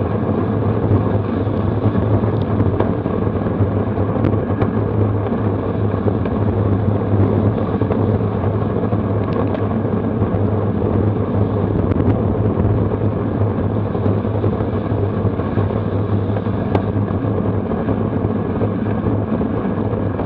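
Steady, deep rush of wind over the bike-mounted camera's microphone while riding a road bike at about 28 mph in a racing pack, with a few faint ticks.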